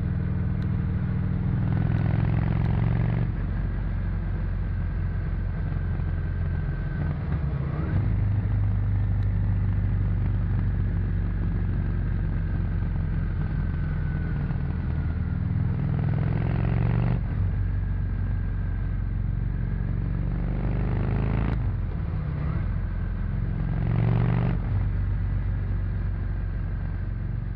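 Honda VT 600 C Shadow's V-twin engine through its stock exhaust, running under way. Its pitch rises as the rider opens the throttle several times, with the engine note dropping in between as it shifts or rolls off.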